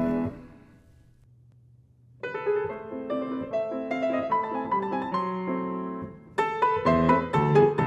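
Grand piano playing: the music dies away at the start, and after about two seconds of near silence a piano melody begins. It turns fuller and louder about six seconds in.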